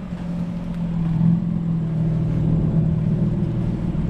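BMW M4's twin-turbo inline-six engine running steadily at low revs, a little louder from about a second in.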